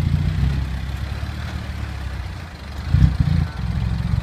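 Six-wheel dump truck's diesel engine running as it passes close by, a steady deep rumble with a brief louder surge about three seconds in.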